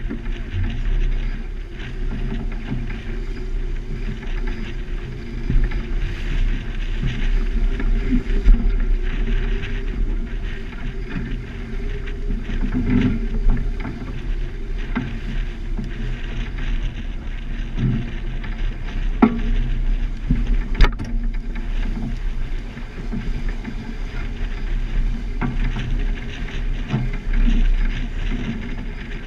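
A small sailboat under way heeled over: water rushing and splashing along the hull, with wind rumbling on the rail-mounted camera's microphone. Two sharp clicks come about two-thirds of the way through.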